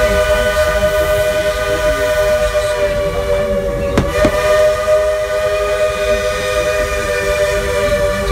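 Steam locomotive's chime whistle blowing one long, steady chord over the low rumble of the train running. A single sharp knock comes about four seconds in.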